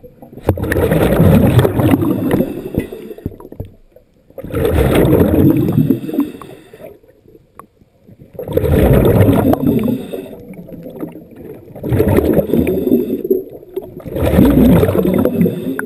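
Underwater diver breathing on a surface-supplied air line: a rush of bubbling exhaust air with each breath, five times, about every three to four seconds.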